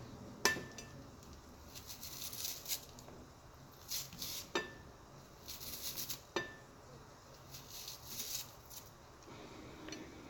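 Knife cutting an onion: crisp slicing and rustling, with three sharp ringing clinks of the blade striking a hard dish.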